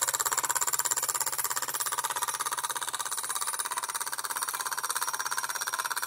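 Bowman E135 live steam model engine running at speed, its exhaust chuffing in a rapid, even beat.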